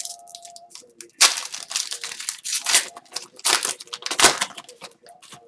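Hockey card pack wrappers crinkling and tearing in a run of irregular rustles as packs are opened and handled.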